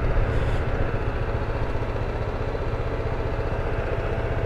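BMW G310GS's single-cylinder engine running at low, steady revs with an even pulse as the motorcycle rolls slowly along a dirt track; it eases off slightly about a second in.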